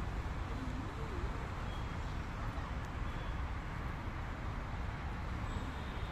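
Steady low outdoor background rumble, with a few faint, brief high chirps now and then.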